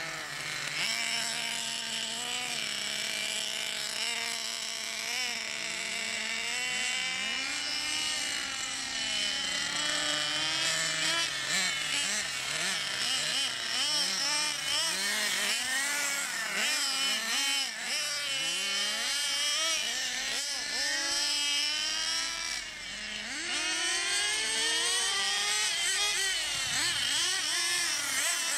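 Small nitro engines of two radio-controlled model cars running at high pitch, revving up and down constantly as the cars are driven, the two engine notes overlapping. About 23 seconds in, the engine sound briefly drops off before rising again.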